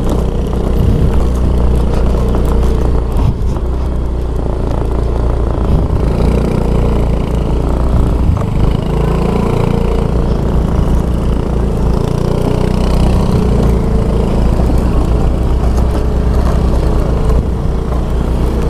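Small motorcycle's engine running at low speed while riding over a rough, rutted dirt and rock track, with a steady low rumble.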